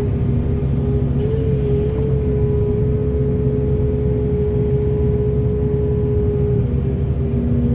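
Heavy excavator's diesel engine running steadily under load, a constant low rumble with a steady whine held on top.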